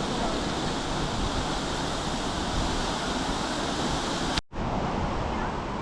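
Waterfall rushing steadily. It drops out for an instant about four and a half seconds in, then carries on a little duller.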